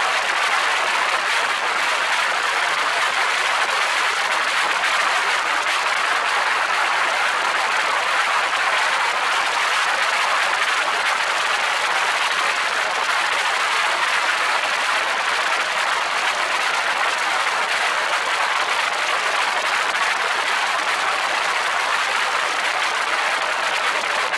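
Steady, unbroken rushing noise of an open-cockpit aircraft in flight: airflow and engine noise blended into an even hiss.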